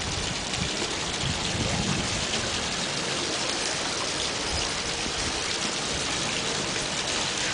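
Steady rush of running water from the Loch, a rocky woodland stream flowing through the channel under the arch.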